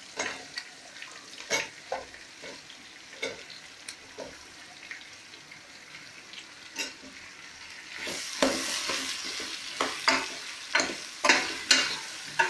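Cut brinjal (eggplant) pieces dropped into hot oil in a steel pot, with scattered knocks and a faint sizzle. About eight seconds in the sizzling gets louder, and a metal spoon stirs the pieces, clicking against the pot.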